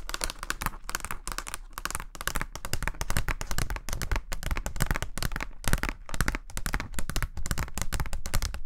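Fingernails tapping and clicking quickly and irregularly on a plastic accordion receipt file as it is handled, many small taps a second.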